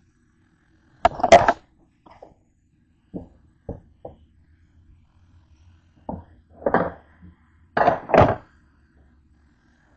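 Handling noises on a kitchen counter: a string of short knocks and thunks, with two louder clattering bursts about a second in and near the end, as things and the camera are picked up and set down.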